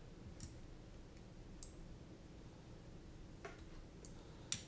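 A few faint, sparse clicks of small nylon fasteners and plastic parts being handled and screwed on by fingers on a drone's flight-controller stack, the sharpest click near the end.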